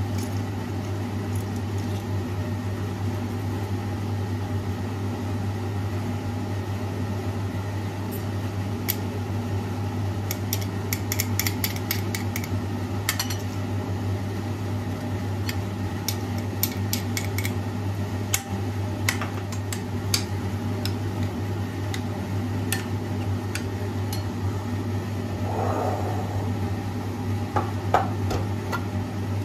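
A steady electrical appliance hum, with light clinks and taps of dishes and cutlery from about eight seconds in.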